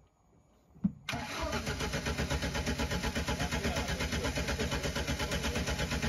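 Off-road car's engine being started: after a short knock, the starter and engine come in suddenly about a second in and go on with a steady, even rhythmic pulse for about five seconds.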